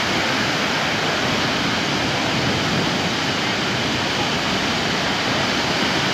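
Steady rush of ocean surf breaking on a sandy beach.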